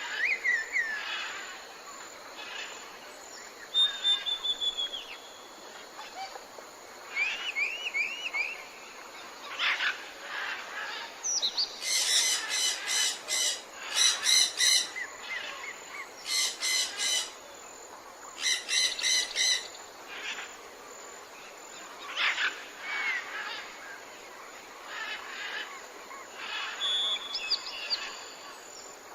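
Tropical forest ambience: several birds calling with chirps and short whistled phrases over a steady insect hiss. In the middle come four loud, rapid pulsing calls, each about a second long.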